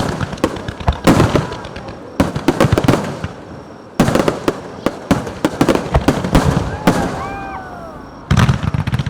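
Aerial fireworks shells bursting in quick succession, sharp booms with crackling between them, and a fresh salvo about four seconds in and another near the end. A few short rising-and-falling tones sound about seven seconds in.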